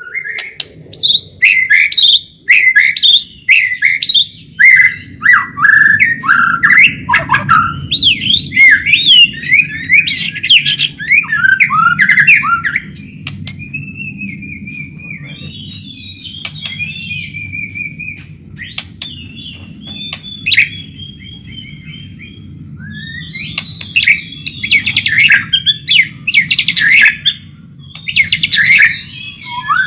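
White-rumped shama (murai batu) in full song: fast, varied whistled phrases broken by sharp clicks. The song softens into a more continuous twittering about midway, then turns loud and varied again. A low steady hum runs underneath.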